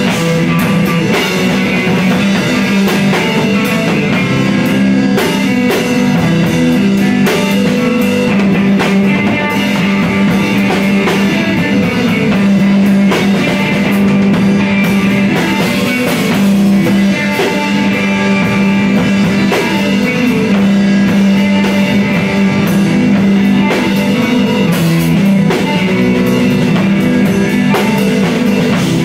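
Electric guitar and drum kit playing instrumental math rock together, the drums and cymbals striking densely under the guitar's notes.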